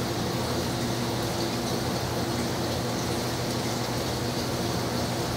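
Steady machinery hum: several low steady tones over an even hiss, with no change in level.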